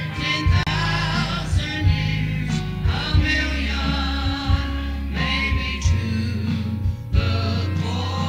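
Church choir singing a gospel song over an instrumental accompaniment, with held bass notes that change every second or two.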